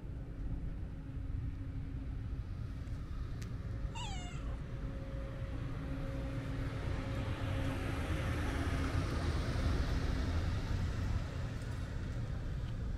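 A Siamese-mix cat gives one short meow that falls in pitch, about four seconds in. Behind it a faint steady hum runs, and a passing vehicle swells to its loudest around ten seconds in before fading.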